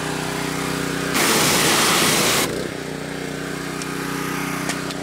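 An engine runs steadily throughout. About a second in, a loud hiss starts, lasts about a second and a half, then cuts off sharply.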